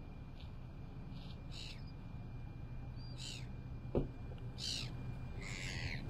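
Seagulls calling: about four short, high calls, each sliding downward, the last the longest, over a steady low rumble. A single dull thump about four seconds in.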